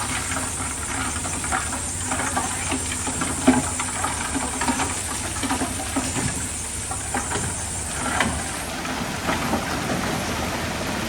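Diesel engine of heavy earthmoving machinery running steadily, with scattered knocks and clatters over it. A high hiss runs alongside and cuts off about two-thirds of the way through.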